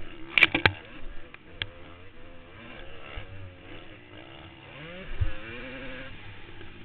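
Motocross bike engine revving up and down through the throttle, heard from the rider's helmet camera with rushing noise. There are several sharp knocks about half a second in and a low thump about five seconds in.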